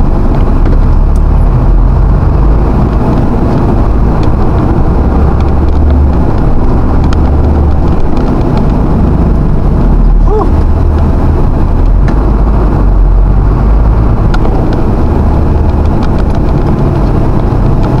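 Engine and road noise heard from inside a vehicle's cab as it creeps along in traffic: a loud, steady low rumble. A short squeal that rises and falls comes about ten seconds in.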